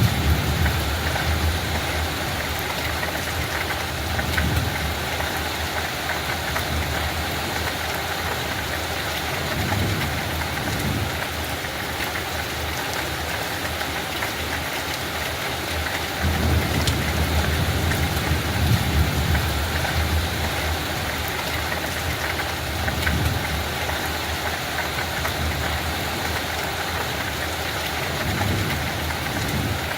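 Steady light rain, an even hiss, with low rumbles that swell and fade several times.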